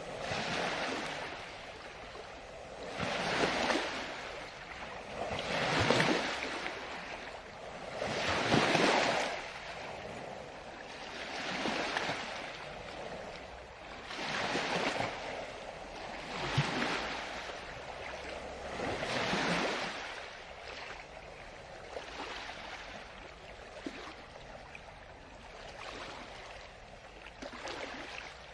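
Ocean waves washing in on the shore. A wave surges in roughly every two to three seconds and then eases off into quieter, lapping wash for the last third.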